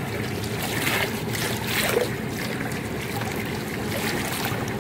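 Rush and slosh of swimming-pool water heard by a submerged camera, with louder swishes from a swimmer's strokes about one and two seconds in.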